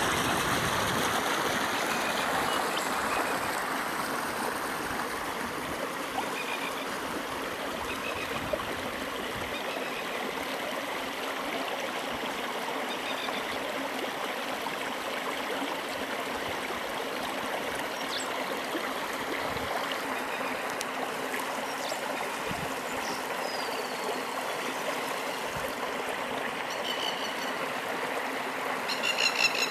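Floodwater running over the ground in a shallow stream: a steady rush and trickle of water. A few short bird calls come in near the end.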